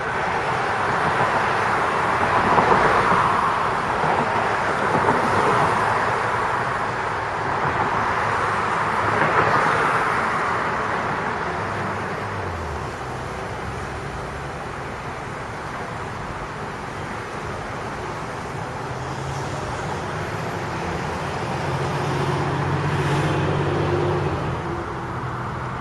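Road traffic going by, with vehicles passing twice in the first ten seconds. A low engine hum rises near the end.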